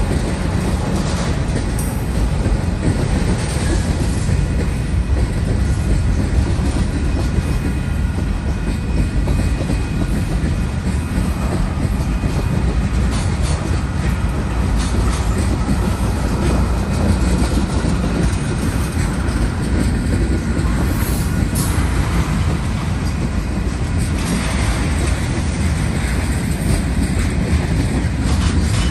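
Freight train of tank cars and covered hopper cars rolling past at steady speed: a continuous rumble of steel wheels on rail, with clickety-clack as the wheels cross the rail joints.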